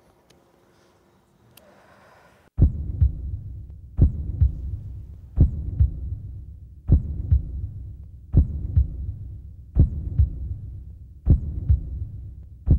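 Heartbeat sound effect: a slow, deep lub-dub, each strong beat followed by a softer one, about one pair every second and a half. It starts about two and a half seconds in, after a faint opening.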